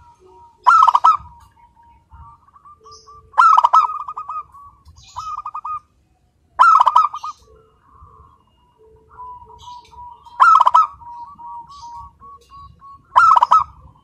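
Zebra dove cooing its repeated song: each phrase opens with a loud note and trails off in a rapid run of softer coos, about every three seconds.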